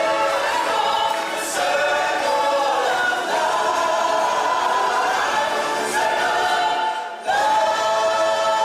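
A choir of voices singing long held notes in a stage-show song. The singing breaks off briefly about seven seconds in, then comes back on a full held chord.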